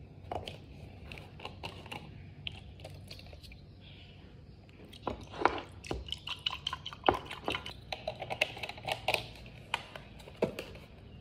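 Oat milk poured from a carton over ice cubes in a glass mug: a few scattered handling clicks, then from about five seconds in a quick run of clinks and crackles as the ice shifts against the glass under the stream of milk.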